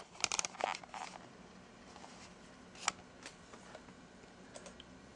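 Quiet room tone with a faint steady hum and a few small clicks and rustles: a quick cluster in the first second and a single sharper click about three seconds in.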